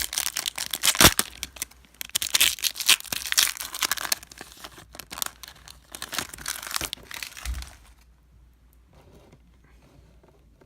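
Trading-card pack wrapper being torn open and crinkled, a dense crackling with a sharp snap about a second in, stopping about eight seconds in.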